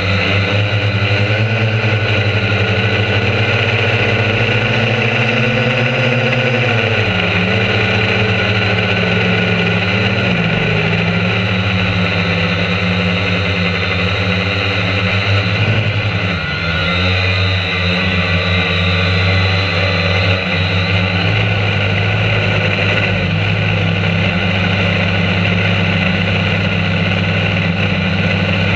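Quadcopter drone's electric motors and propellers whirring steadily, heard close up from the onboard camera. The pitch drops about seven seconds in and wavers again around sixteen seconds as the motors change speed while the drone manoeuvres.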